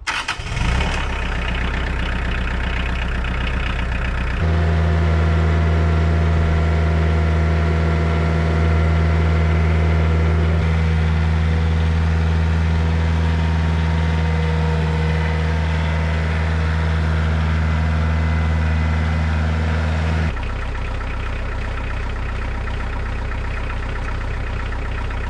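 Kioti compact tractor's diesel engine starting, then running steadily. About four seconds in it gets louder with a strong low hum, and near the end it drops back a little.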